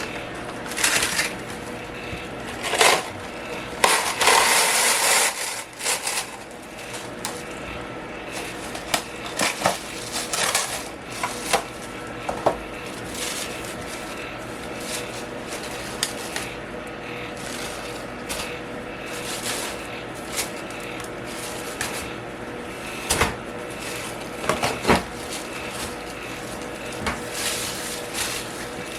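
Steady hum of a room fan, with bursts of rustling and crinkling and scattered clicks and taps from hands handling things. The loudest rustling comes about four to five and a half seconds in.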